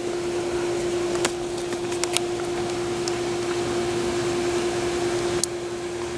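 Steady machine hum with one constant tone, over an even hiss, with a few light clicks and taps.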